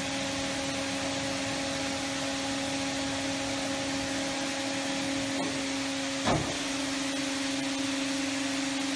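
1971 Boldrini Ribo 18 flanging machine running, a steady motor hum with a low drone, and a single clunk about six seconds in.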